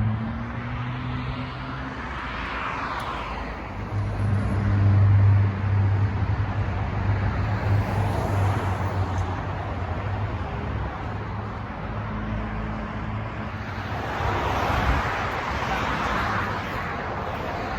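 Steady engine and road noise of a car being driven, a low drone under tyre hiss. The hiss swells twice, about three seconds in and again near the end.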